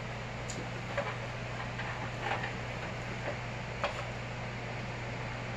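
A few light clicks and taps of small plastic dollhouse furniture being handled and set down, over a steady low hum.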